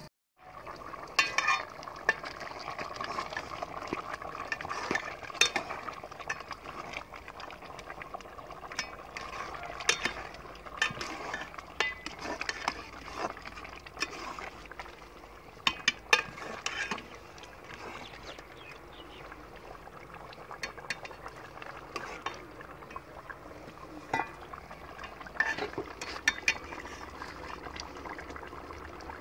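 A metal ladle stirring a pot of boiling curry in an aluminium cooking pot, clinking and scraping against the pot's sides at irregular moments over the steady bubbling of the pot.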